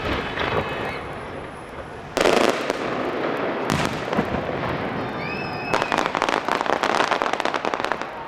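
Fireworks display: a loud shell burst about two seconds in and another just under four seconds in, each dying away, then a dense rapid crackling that lasts about two and a half seconds near the end.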